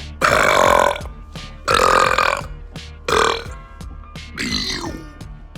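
A man belching loudly: three long burps about a second and a half apart, then a softer, falling one near the end, over background music.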